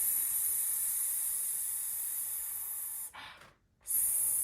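A woman making a long, steady "sss" hiss, the S sound, blowing air out through closed teeth. It stops about three seconds in, and after a short pause a second hiss starts near the end.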